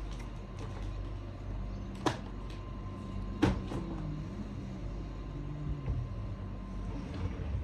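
A few sharp clicks and knocks from small objects being handled, about two seconds in and again near three and a half seconds, with a louder click at the end. A steady low hum runs underneath.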